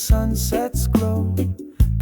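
Reggae song playing: a bass line and drum hits under a sung melody.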